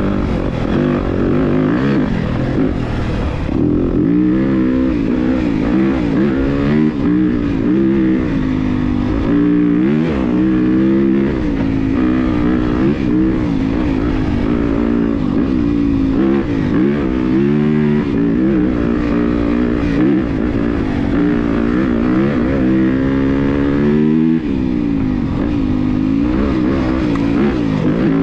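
Yamaha YZ250FX dirt bike's single-cylinder four-stroke engine revving up and down with the throttle while riding a trail. Its pitch rises and falls every second or two.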